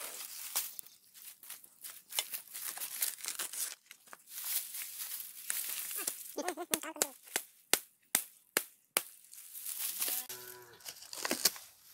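A hooked machete hacks into the crown of a felled coconut palm while its fibrous frond sheaths are ripped away to reach the heart of palm, with a quick run of sharp blade strikes a little past the middle. A cow lows twice, once in the middle and once near the end.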